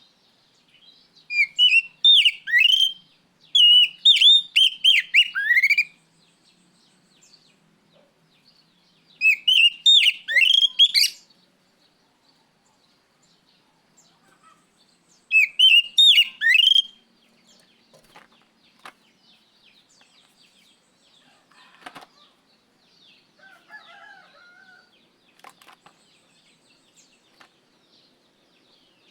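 Oriental magpie-robin singing in four loud bursts of rapid, sharp whistled notes that slide up and down. The second half holds only faint scattered clicks and soft chirps.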